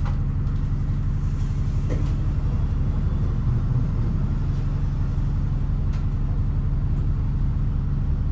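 Double-decker bus running on the move, heard from the upper deck: a steady low engine drone with a few faint clicks and rattles.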